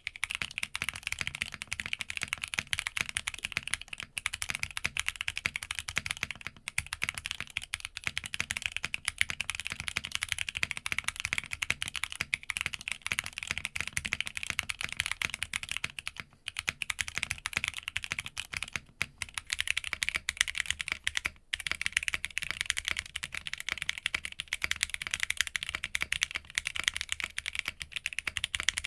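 Rapid, continuous typing on an Arc60 60% mechanical keyboard with EMT v2 switches, a quick clatter of key presses with short breaks. It is mounted first on a carbon-fibre plate, then, after a brief pause in the later part, on a polycarbonate plate.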